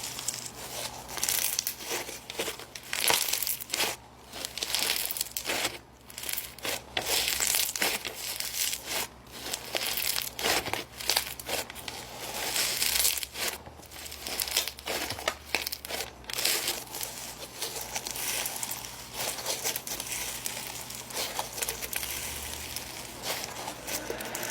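Snow fizz slime being squeezed and pressed by hand, giving off uneven crinkly, crackling fizz sounds that come and go in bursts.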